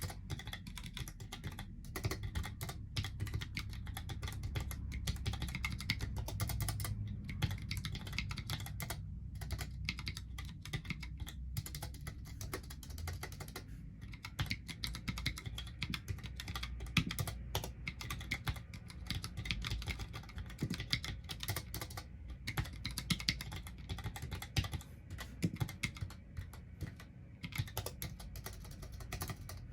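Fast, continuous typing on a Mistel Barocco MD650L split mechanical keyboard with Cherry ML low-profile switches: a dense, unbroken stream of key clicks.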